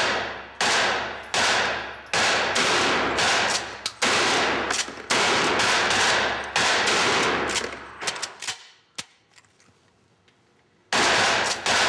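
Handgun shots fired in an indoor concrete-walled range, a steady string of them with a long echoing tail after each. They stop about eight and a half seconds in. After a short near-quiet gap, loud firing starts again just before the end.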